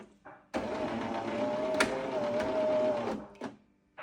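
Jura Impressa S9 coffee machine's brewing-unit drive motor whirring in a stop-start run: it cuts out, starts again about half a second in with a click near the two-second mark, then winds down and stops shortly before the end. The machine is struggling to clear the brewing unit, a sign that the electric motor for the rinse clearing system is getting tired.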